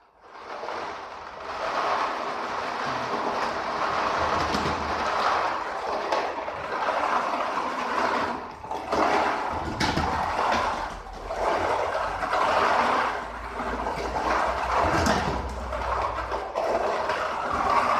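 Lottery drawing machine switched on and running with a steady rushing noise, its cylindrical plastic capsule balls tumbling inside and knocking against each other and the housing now and then.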